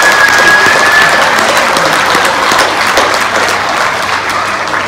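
Audience applauding, loud and even, slowly dying down over the last couple of seconds, with a high held tone over it in the first second.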